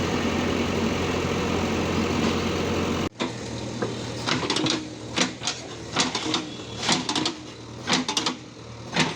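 A JCB's diesel engine running steadily, cut off abruptly about three seconds in. After that comes a quieter stretch of irregular sharp clicks and knocks, a few each second.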